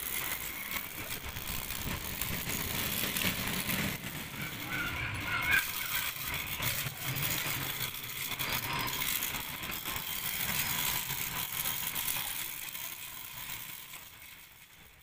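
Small electric motor running with a steady whine and a rattle of fast clicks, fading out over the last few seconds.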